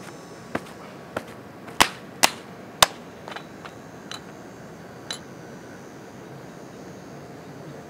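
A series of about nine sharp clicks and knocks at irregular intervals, the loudest about two to three seconds in, over a steady faint background hiss.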